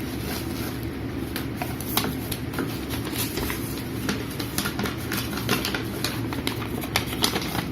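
Packaging being handled, giving many short irregular clicks over a steady low hum.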